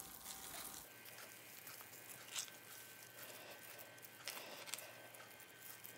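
Faint, soft squishing and tearing of layers of cooked meat being peeled apart by hand, with a few brief louder touches, the loudest about two and a half seconds in.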